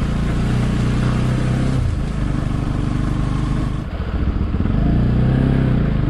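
Motorcycle engine running under way. Its revs drop about two seconds in and it chugs at low revs around four seconds, then picks up again about a second later.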